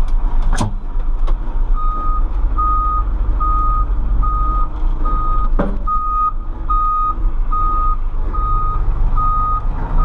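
Case 590 Super M backhoe's diesel engine running under the cab, with its reverse alarm starting about two seconds in and beeping steadily, a little faster than once a second, as the machine backs down the trailer ramps. Two sharp knocks are heard, one near the start and one around the middle.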